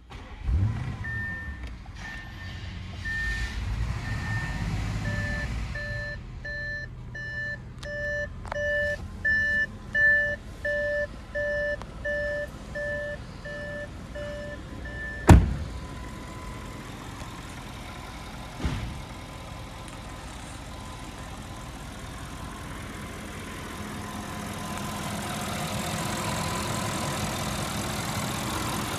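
A 2016 Audi A8's V8 TFSI engine starting and then idling. The car's two-tone warning chime beeps repeatedly, about one and a half times a second, until about fifteen seconds in, when a single sharp bang cuts it off. The engine is heard louder and fuller near the end, with the hood open.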